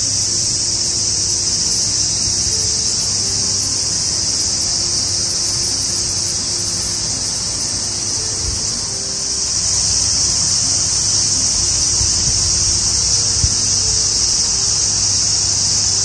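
Steady, high-pitched chorus of insects in the garden trees, with faint soft music underneath.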